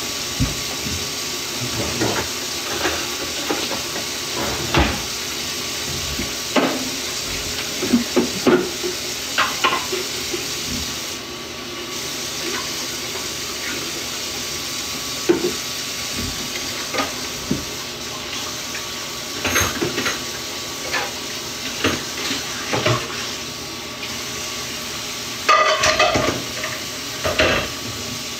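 Dishes and utensils clinking and clattering in a kitchen, in scattered short knocks over a steady hiss.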